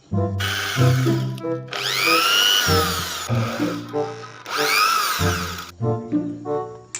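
Electric drill whirring in three short bursts, its whine rising and then falling in pitch during the second and third, over background music.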